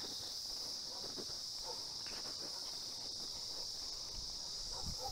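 A steady, high-pitched insect chorus, with faint footsteps on a paved path beneath it.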